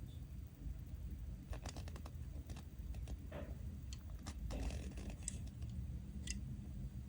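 Hands handling the packaging of a 1:64 diecast model car: a run of small plastic clicks and scrapes in the middle, with a steady low hum underneath.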